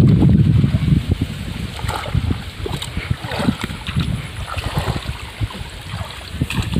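Water splashing and churning as a man wades through a shallow stream. It is loudest at the start and goes on more unevenly afterwards.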